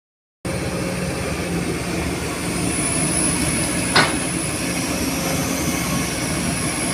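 Sumitomo hydraulic excavator's diesel engine running steadily as it works, with a thin high steady whine. A single sharp knock comes about four seconds in, as the boom swings back from the dump truck.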